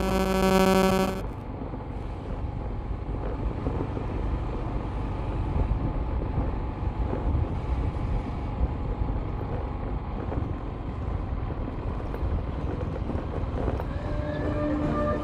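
Vehicle driving slowly along a concrete road: a steady low engine and road rumble. A loud held pitched tone sounds for about a second at the start, and another pitched tone comes in near the end.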